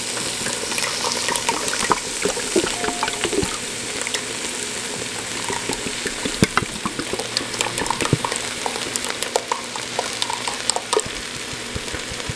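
Onions, green bell pepper and celery sizzling in hot oil in an enamelled pot as thick tomato sauce is poured in from a can: a steady hiss with scattered pops and crackles that grow busier about halfway through.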